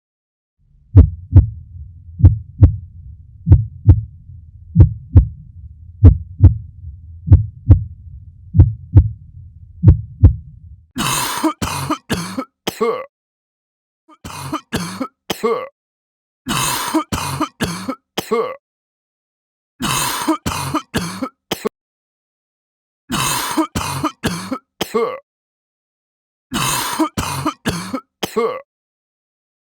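A human heartbeat, deep thumps about once a second for the first ten seconds. It is followed by a person coughing in six fits of three or four coughs each.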